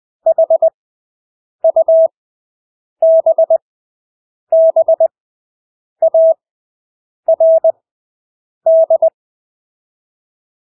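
Morse code (CW) at 20 words per minute with Farnsworth spacing: a single steady pure tone keyed into quick dits and dahs. Seven characters sound, each about half a second long, separated by gaps of about a second that stretch the spacing between characters.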